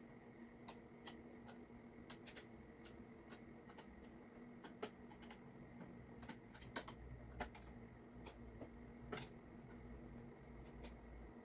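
Faint, irregular small clicks and ticks from hands working on the scooter's handlebar parts, one sharper click about two-thirds through, over a low steady hum.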